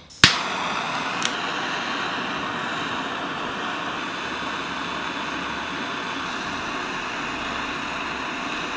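Butane micro torch lit with a click, then its flame hissing steadily while it heats small steel screws to a cherry-red glow for hardening.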